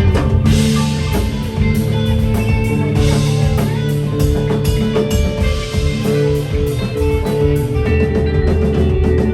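Live rock band playing: electric guitar and a drum kit, with sustained notes over steady drum and cymbal hits.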